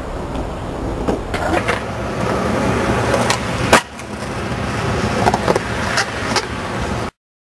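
Skateboard wheels rolling on concrete, with a series of sharp clacks from the board, the loudest just under four seconds in. The sound cuts off abruptly near the end.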